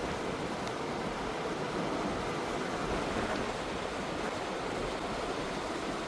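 Pacific Ocean surf washing steadily against the shore, with some wind noise on the microphone.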